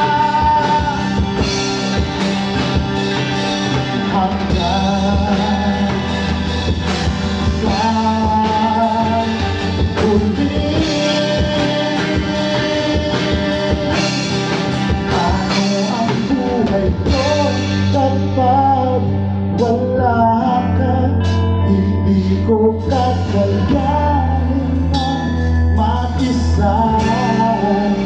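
A live band playing a song with singing, over acoustic and electric guitars, bass guitar and drums. The bass line grows fuller a little past the middle.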